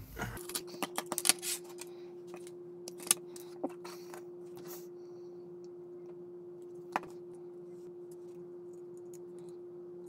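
Small plastic model parts and tools clicking and tapping as they are handled and set down on a cutting mat: a quick flurry of taps at first, then a few single sharp clicks, over a faint steady hum.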